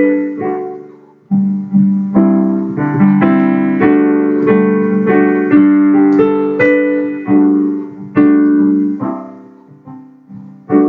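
Piano playing a slow instrumental passage of struck notes and chords, each one ringing and fading before the next.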